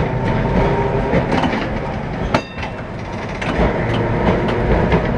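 Historic tram running, heard from inside the wooden driver's cab: a steady rumble of wheels and motor with scattered clacks, and one sharp metallic clack with a short ring about two and a half seconds in, after which the rumble eases slightly.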